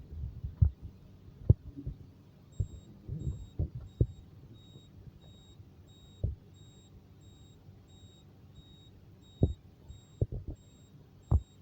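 Faint high electronic beeping from a fire alarm panel's buzzer, repeating evenly about twice a second and starting a few seconds in. Over it come scattered low knocks and thumps, the loudest sounds, from handling.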